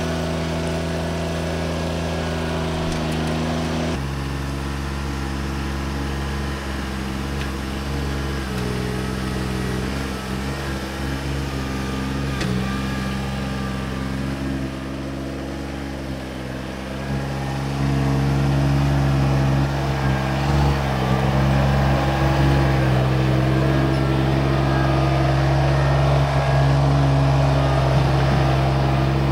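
A John Deere 755 compact tractor's diesel engine runs steadily. Its note shifts about four seconds in, and it grows louder from about seventeen seconds in as it works harder.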